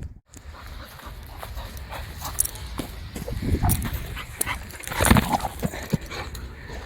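Boxer dog at play with a ball: irregular knocks and clicks alongside dog noises, with the loudest knock about five seconds in.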